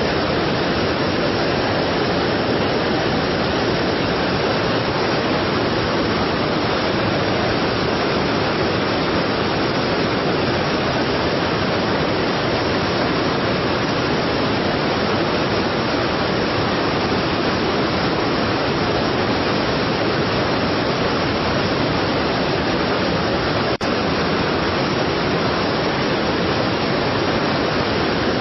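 Strong waterfall: a steady, dense rush of falling water. It is broken once near the end by a momentary dip with a faint click.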